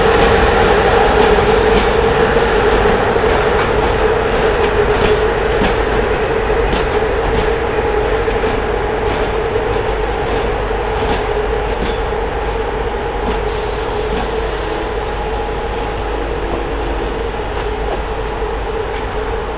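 Passenger train coaches rolling slowly past, wheels clicking over rail joints, mostly in the first half, under a steady high whine. The sound fades gradually as the train draws away.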